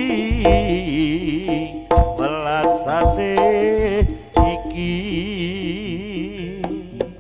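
Jaranan gamelan music: a melody line with a wobbling pitch over kendang drum strokes and gamelan notes, dying down near the end.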